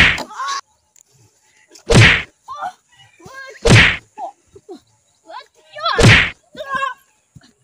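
Fight-scene punch and kick sound effects: four loud whacks, each about two seconds apart, with short cries and grunts in between.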